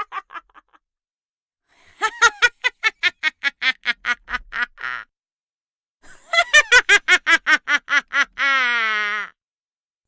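Witch's cackling laugh sound effect: the tail of one cackle fading out at the start, then two high, rapid cackles of about five ha's a second, separated by short silences. The second cackle ends in a long, wavering, falling drawn-out note.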